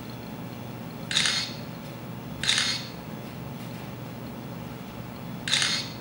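An iPad camera app's simulated shutter sound, played three times as the capture button is tapped: about a second in, again about a second later, and once more near the end.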